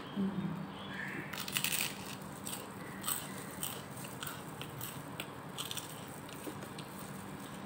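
Crunching and crackling of crisp fried food, such as pork crackling and fried dried fish, being bitten and broken up while eating by hand. A dense burst comes about a second and a half in, then scattered single crackles, over a steady low hum.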